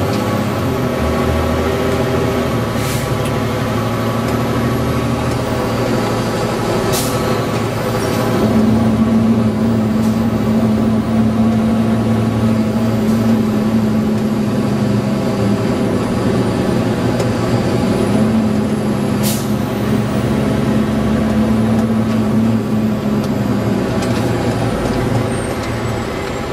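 Fire engine's diesel engine running, heard from inside the cab as the truck drives slowly, with a steady drone. A stronger droning note comes and goes through the middle, and a few short sharp knocks or hisses stand out over the engine.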